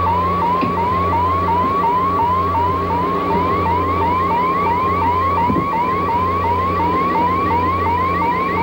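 Cybermat electronic sound effect: a chain of short chirps, each rising in pitch, about two and a half a second, over a steady low electronic hum.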